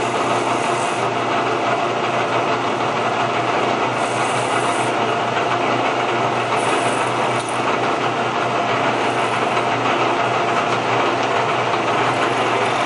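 Number 21 wire high-speed steel drill bit in a milling machine cutting a through hole in a steel AK front trunnion: a steady scraping cutting noise over the spindle's even hum.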